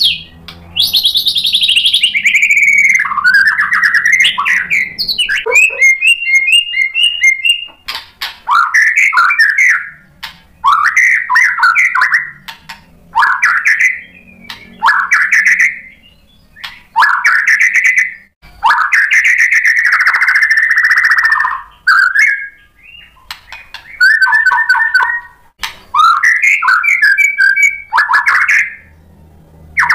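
White-rumped shama (murai batu) singing loudly in a run of varied phrases: clear whistles, sweeping glides and rapid trills, each phrase a second or two long, separated by short pauses.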